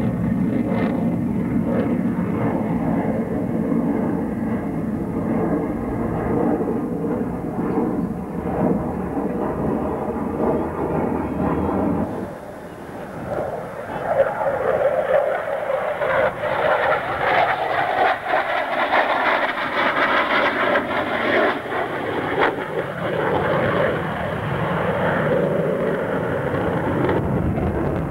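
Saab JA 37 Viggen fighter's Volvo RM8B afterburning turbofan heard in a display flight, a continuous jet roar. It dips briefly about twelve seconds in, then comes back harsher and higher-pitched.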